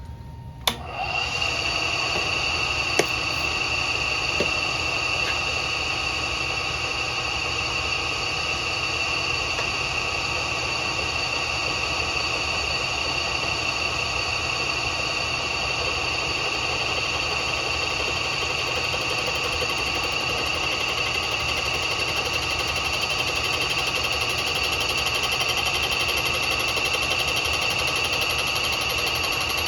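Bridgeport milling machine starting up about a second in, then running steadily with a high whine while taking a two-thousandths skim cut across the deck of a Harley-Davidson cylinder.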